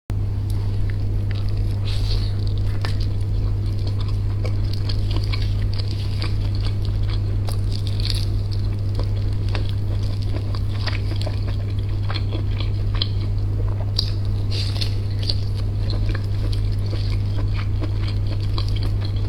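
Close-miked eating: wet chewing and crunchy bites, many small irregular crackles and clicks, over a steady low hum.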